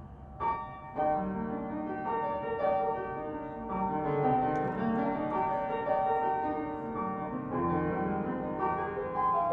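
Background music: a piano playing sustained chords and a melody, the opening of a song.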